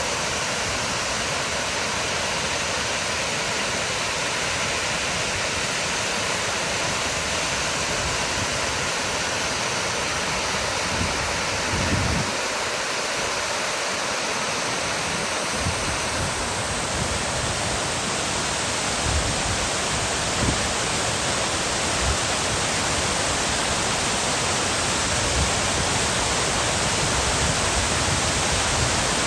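Artificial garden waterfall: water falling and splashing in a steady, even rush, with a few brief low bumps.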